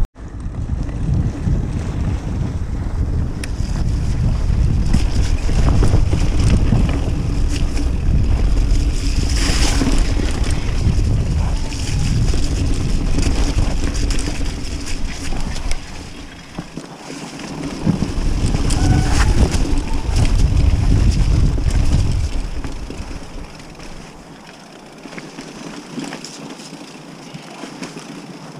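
Wind buffeting the microphone of a GoPro Hero 5 Session on a mountain bike riding down forest singletrack, a loud low rumble mixed with the rattle and knocks of the bike over the trail. The rumble eases briefly about two-thirds of the way through and falls away for the last few seconds, leaving lighter rattling.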